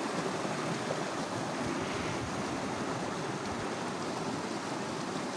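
Shallow river water rushing and splashing over rocks in small rapids, a steady rush of noise.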